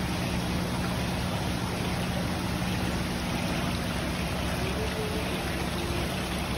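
Water rushing and swirling steadily in a children's whirlpool water-play table, with a hand swishing in it and a steady low hum underneath.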